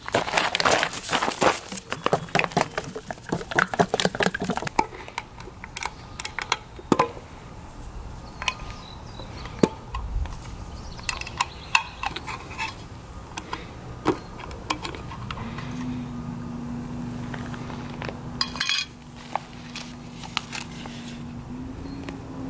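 Shoes crunching on loose gravel for the first few seconds, then scattered metallic clicks and clinks as a metal paint can lid is pried open. About two-thirds of the way through, a steady low hum sets in and holds to the end, stepping up slightly in pitch near the end.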